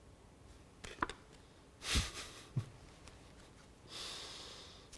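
A woman's breathing as she is overcome with emotion: a sharp breath about two seconds in and a longer breath near the end, with a faint tap about a second in.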